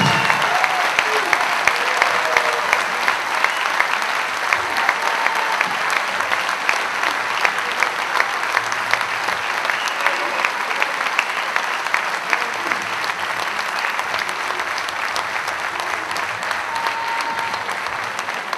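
Concert-hall audience applauding after a dance performance, the clapping dense and steady and slowly dying down.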